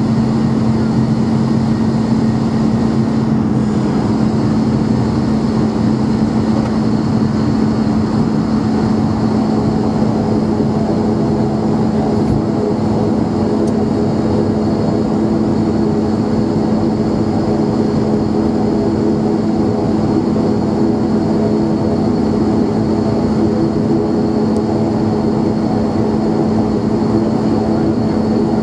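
Cabin sound of an ATR 42-500's Pratt & Whitney PW127 turboprop engines and six-blade propellers while the aircraft taxis: a steady drone with a strong low hum. About nine seconds in, further higher steady tones join the drone.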